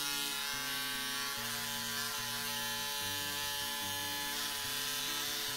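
Steady buzzing hum of a small electric motor, over background music whose low notes change about every half second.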